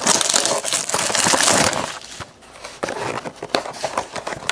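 Packaging of a trading-card hobby box crinkling and tearing as it is opened by hand: a loud, dense rustle for the first second and a half or so, then quieter scattered crackles and small clicks.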